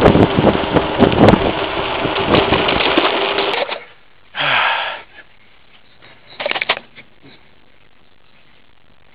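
Wind buffeting the microphone of a camera moving along a street, with knocks and rattles. It cuts off suddenly about three and a half seconds in. Then comes one short burst of noise and, a little later, a brief cluster of clicks.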